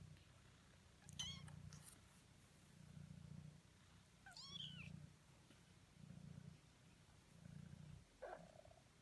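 Faint cat purring, pulsing with each breath, while young kittens give three short, high-pitched mews.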